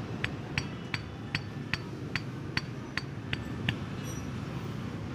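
Piston of a Yamaha Scorpio 225 being rocked by hand in its cylinder bore, clicking against the bore wall about three times a second, about ten clicks that stop near the end. The loose clatter shows a worn piston with too much play in the bore, the cause of the engine's knocking.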